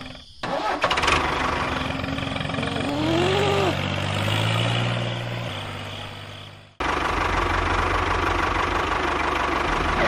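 Tractor engine running, growing stronger through the middle. About two-thirds of the way in it cuts off abruptly and is replaced by a steady, low, evenly pulsing engine idle.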